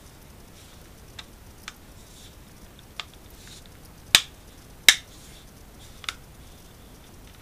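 Plastic snap-fit latches of a Seagate Central network drive's housing clicking into place as the cover is pressed shut: three light clicks, then two sharp, loud snaps less than a second apart, and one more click about a second later.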